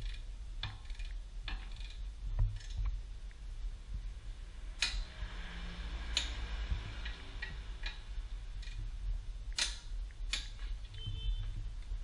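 Scattered metallic clicks and clinks of a hand wrench working at the front brake caliper and wheel hub, with a few sharper knocks, over a steady low hum.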